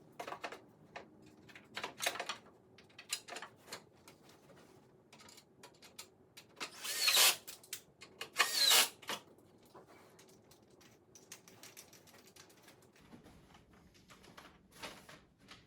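Clicks and knocks of hardware and wooden furniture parts being handled during assembly, with two louder short noisy sounds about a second and a half apart near the middle.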